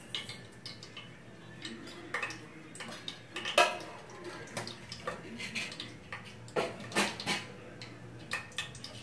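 Mustard seeds spluttering in hot oil in an aluminium pressure cooker: scattered, irregular sharp pops and crackles, with a few louder metallic knocks, the strongest about three and a half seconds in and again around seven seconds in.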